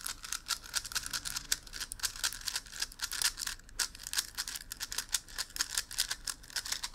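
Fast plastic clicking of a megaminx being turned quickly, many clicks a second without a break.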